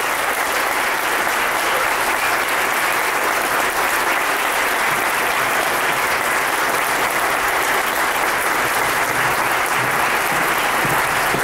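Audience applauding steadily after the duet has ended.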